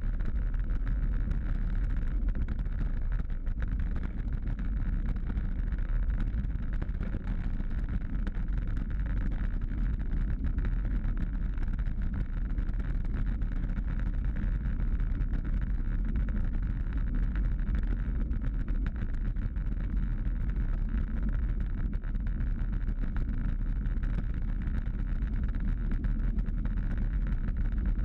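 Steady wind buffeting and road rumble picked up by a bicycle-mounted camera as the bike rolls along rough, patched asphalt, deep and unbroken throughout.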